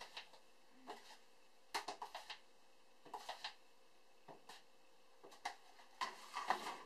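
Plastic measuring scoop digging into powdered sanitizer and tapping on the rim of an empty plastic fermenter bucket as the powder is tipped in: light clicks and scrapes in small clusters about once a second.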